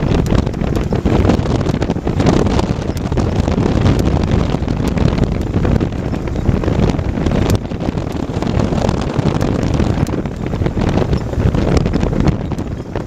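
A moving car's steady road and wind noise, with many short clicks scattered through it.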